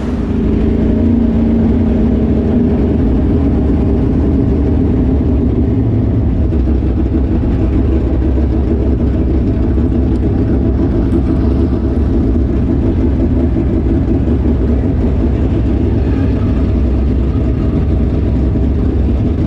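Street stock race car engine running hard at a fairly even pitch, heard from inside the car's cockpit. The sound is loud, steady and heavy in the low end.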